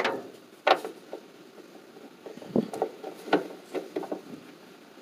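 Ratchet wrench with socket and extension turning a bolt: a handful of sharp, irregularly spaced metal clicks and clinks.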